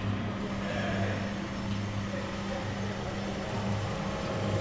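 Probat LP5 drum coffee roaster running with its gas burner lit: a steady machine hum of motor and fan, with a low throb that comes and goes.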